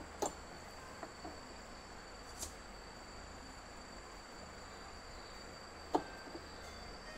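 Faint, steady high-pitched trilling of crickets, with a few soft knocks, the sharpest about six seconds in.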